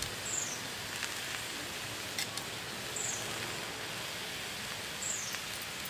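Outdoor ambience: a steady hiss with a few faint clicks, and a short high chirp falling in pitch three times, about two and a half seconds apart.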